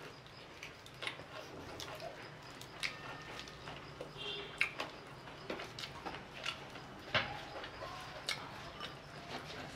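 Close-miked eating sounds: crispy fried chicken being torn apart by gloved hands and chewed, with irregular small crunches, clicks and mouth noises.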